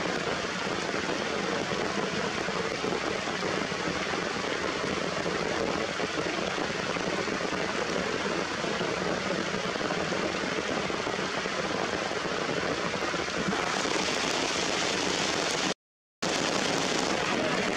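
Steady rain falling on rocks and leaves, a continuous even hiss. Near the end the sound cuts out completely for about half a second, then the rain resumes.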